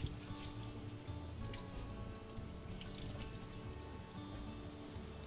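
Water running and splashing at a kitchen sink, with light clatter, as a cutting board and knife are rinsed clean of onion smell.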